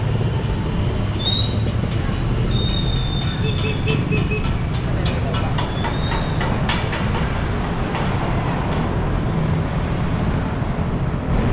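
Riding a bicycle along a road: a steady low rumble of wind and road noise on the microphone, with a few brief high squeals and a run of rattling clicks in the middle.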